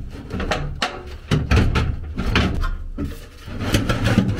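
Sheet-metal blower housing and control-board bracket of a Goodman furnace being handled and lined up by hand: irregular knocks, clunks and scraping of metal.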